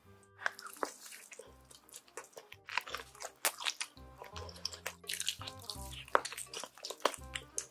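Close-up crunching, biting and chewing of food, with many sharp irregular crackles, over background music.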